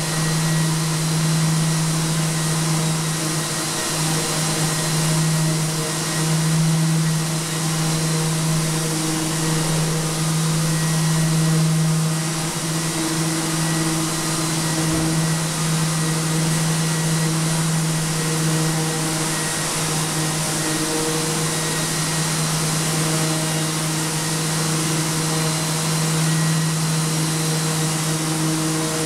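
A Festool dust extractor and the hand-held electric sander hosed to it run steadily, with a constant motor hum over a wide hiss that swells and dips a little as the sander is worked over a wall to strip off compressed charcoal.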